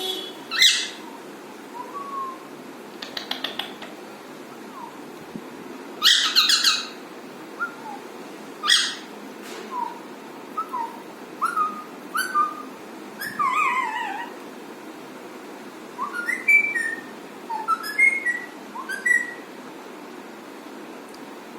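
Alexandrine parakeet calling: a few loud, harsh squawks, one of them held for about a second, scattered among many short whistled chirps that slide up and down in pitch.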